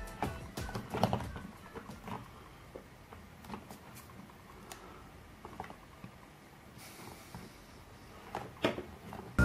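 Light clicks and taps of hard plastic toy parts being handled: the lever arm and press of a Play-Doh Cookie Factory set. The clicks are scattered and irregular, thicker in the first couple of seconds and again near the end.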